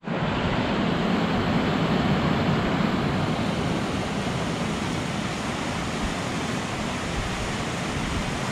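Waterfall: a steady, even rush of water pouring over rock, cutting in abruptly at the start.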